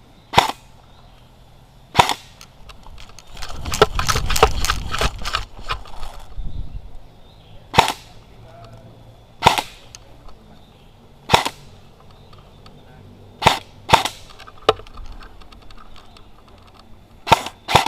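AR-15/M4-style airsoft rifle firing single shots, sharp cracks roughly every two seconds, with a quicker flurry of shots and handling noise about four seconds in and two shots close together near the end.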